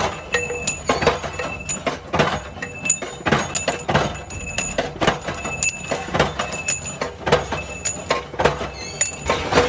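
Short steel rod pieces, cut to rotor-shaft length by a shearing machine, dropping one after another onto a pile of cut pieces. Each lands with a sharp metallic clink and a brief ring, about every half second.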